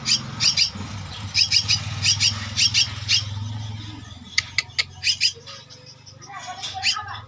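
Javan myna chicks, about two weeks old, giving short, harsh begging calls in quick pairs, roughly one pair every half second, with a gap in the middle before they resume. A low steady hum sits under the first half.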